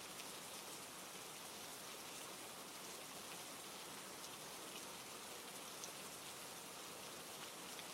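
Steady rain falling over a forest: an even, soft hiss with faint scattered drop ticks.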